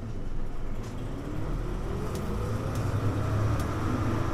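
Hino U-HU2MLAA city bus pulling away from a stop, heard from inside the cabin: the engine and drivetrain rumble, with a whine that rises steadily in pitch as the bus accelerates.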